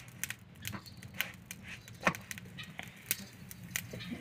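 A few scattered light clicks and taps from hands and aluminium utensils while making roti at a clay stove. The loudest tap comes about two seconds in.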